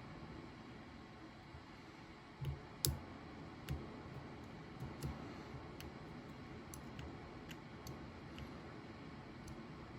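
Small irregular clicks of a lock pick and tension wrench working the wafers inside a vintage Yale wafer padlock, the sharpest click a little under three seconds in.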